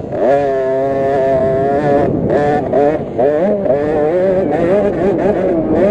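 KTM SX50 50cc two-stroke minibike engine at full revs, heard close from on board: it revs up just after the start, holds a steady high pitch for about two seconds, then rises and falls again and again as the throttle is opened and shut.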